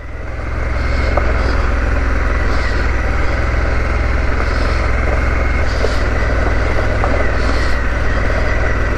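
Harley-Davidson Pan America's V-twin engine pulling steadily under way, rising in level over the first second and then holding steady.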